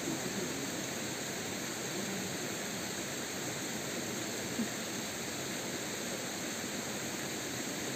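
Steady rushing of a rocky mountain stream, an even hiss with no breaks, with one short tap about four and a half seconds in.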